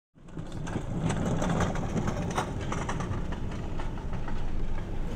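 A vehicle engine running with street noise, starting suddenly just after the beginning: a steady low rumble with scattered clicks and knocks on top.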